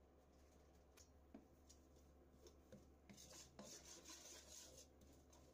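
A metal utensil stirring and scraping a thick sauce base across the bottom of a wok, faintly. A few light clicks come first, then about two seconds of steady scraping starting about three seconds in.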